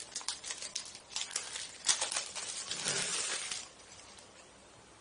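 Plastic packaging crinkling and crackling as a small wrapped drone battery is handled and unwrapped, a quick run of sharp crackles that stops a little past halfway.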